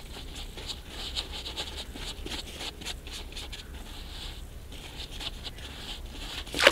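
Close rustling and scraping handling noises with scattered small clicks, from fishing line and a small caught roach being handled by hand, ending in one sharp knock.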